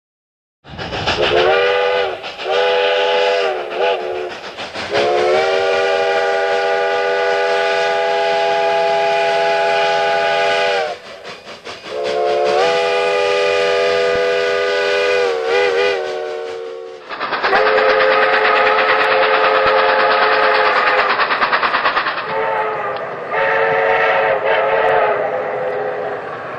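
Steam locomotive chime whistles, sounding several notes at once, from two recordings. First come a few short toots, a long blast of about six seconds, a shorter blast and quick toots. Past the middle follows Frisco 1522's whistle: a long blast of about five seconds, then two shorter ones.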